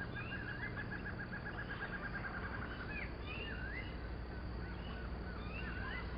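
Forest animal calls: a rapid high trill of about ten notes a second for roughly the first three seconds, then scattered short chirping calls that rise and fall, over a low steady hum.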